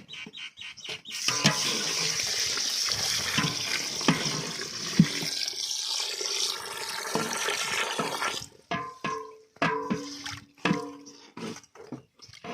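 Water poured in a steady rush over basmati rice in a large vessel to soak it, running for about seven seconds and then stopping, followed by short splashes and sloshes in the pot.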